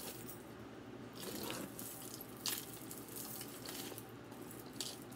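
Jewelry being handled and sorted: a few light clicks and clinks over faint rustling, the sharpest about two and a half seconds in and again near the end.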